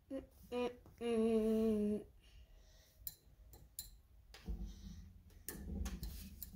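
A person humming: two short hummed notes, then one held note for about a second that falls slightly in pitch. It is followed by a few light clicks and some low rustling.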